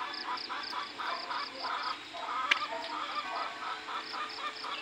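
Animal calls: irregular fowl-like clucking and calling, over a high chirping that repeats in quick, even pulses. A single sharp click comes about halfway through.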